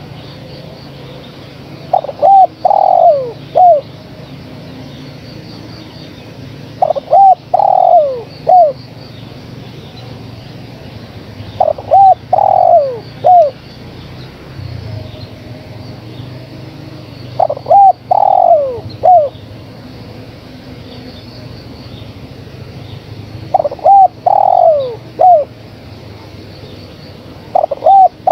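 Spotted dove (tekukur) cooing, presented as a female calling to males. Its phrase repeats about every five to six seconds: two quick notes, a longer falling coo and a short final note, over a faint steady hum.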